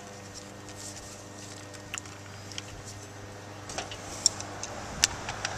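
Scattered small clicks and taps of plastic and brass irrigation fittings being handled and screwed together, over a steady low hum.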